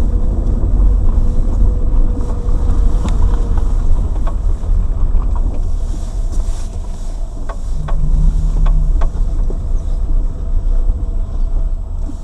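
Inside the cabin of a Lada Granta liftback on the move: steady low road and engine rumble with a handful of short, sharp knocks from the suspension, several of them close together about seven to nine seconds in. This is the suspension knock that comes on turns and over bumps.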